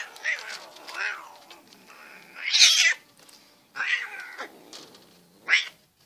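Domestic cat yowling in short outbursts, about six of them, the loudest near the middle, while play-fighting with a puppy.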